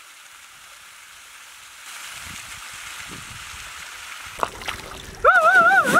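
Water spilling over a stone dam wall and splashing onto the rock below: a steady rushing that starts about two seconds in. Near the end a loud warbling tone starts, wavering up and down a few times a second.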